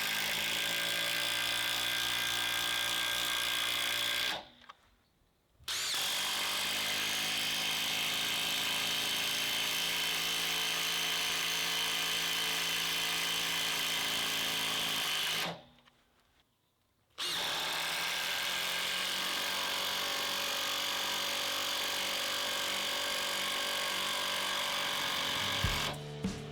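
Cordless impact drivers (a Makita XST01 oil-impulse driver, a Makita XDT16 and a DeWALT DCF809) driving a 5.5-inch screw, one after another. There are three long runs of steady hammering-motor noise: a short one, then a longer one, then another. Each is cut off by a brief pause before the next begins.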